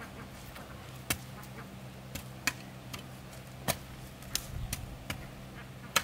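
Long-handled digging tool striking into hard, stony soil, about six sharp strikes roughly a second apart.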